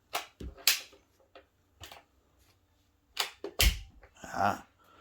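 About four sharp clicks and knocks as the switched-off Shark Vertex stick vacuum is handled and adjusted, one near the start and one about three and a half seconds in being the loudest, the latter with a low thud.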